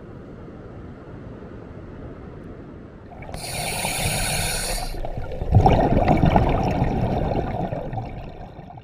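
Water sounds: a soft steady wash, then a hissing rush about three seconds in, and a louder wash of water from about five and a half seconds that fades away near the end.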